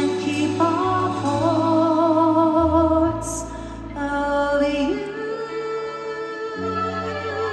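Live band playing a slow ballad, a female singer holding long notes with vibrato over sustained bass and keyboards.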